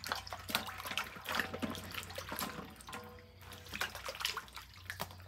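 Hands washing carrots in water in a large metal wok: irregular splashing and sloshing as the carrots are rubbed and turned in the water.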